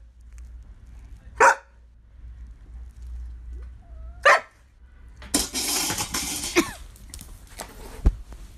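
A large dog barking twice, each bark short and sharp, about three seconds apart. After the second bark comes a hissing noise lasting about a second and a half.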